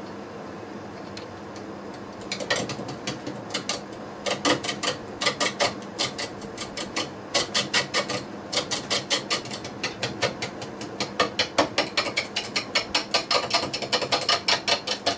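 A turning tool is taking interrupted roughing cuts on an out-of-round horse chestnut log spinning slowly between centres on a Record Power wood lathe. About two seconds in, a rapid run of sharp knocks starts, roughly five a second, as the log's high spots strike the tool on each turn. The lathe's steady hum runs underneath.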